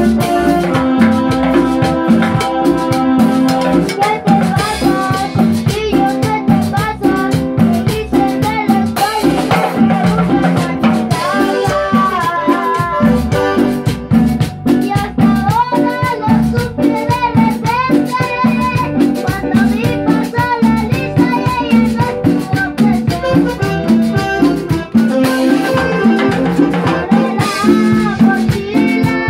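Live Latin tropical band music: drum kit, congas and rattle-type percussion keep a steady dance rhythm under a melody line.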